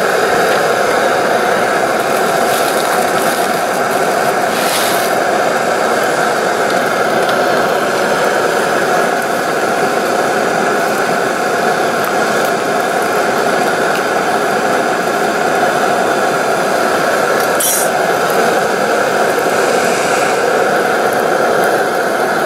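Camp stove burner running with a steady, loud hiss under a steel pot of heating water. A metal spoon clinks against the pot a couple of times.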